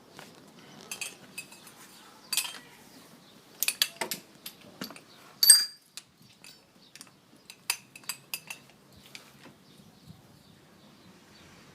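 Metal tools and parts clinking and clanking in irregular knocks. The loudest is a single ringing metallic clank about five and a half seconds in.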